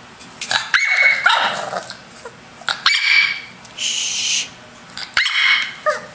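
Bulldog puppy barking and yapping in about four short bursts.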